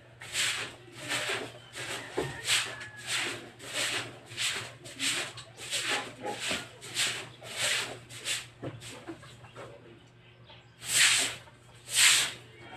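Long-handled broom scrubbing a wet concrete floor in short rasping back-and-forth strokes, about two a second, pausing briefly and then two louder sweeps near the end.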